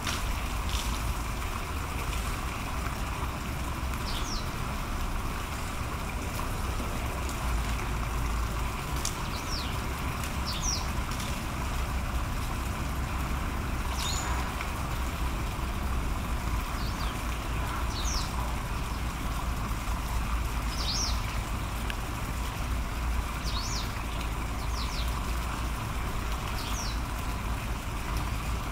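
Short, high bird chirps every few seconds over a steady low rumble of outdoor background noise.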